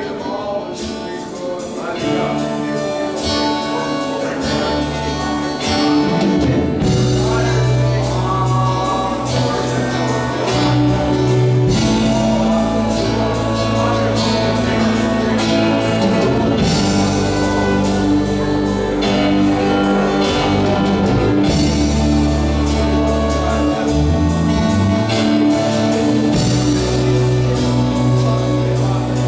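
Live worship band playing, with singing over bass, guitar and drums; the band grows fuller a few seconds in.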